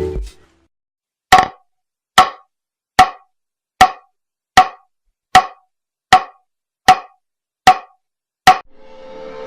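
Rubber mallet striking wood ten times at a steady pace, about one blow every 0.8 seconds: short knocks, each with a brief ringing tone.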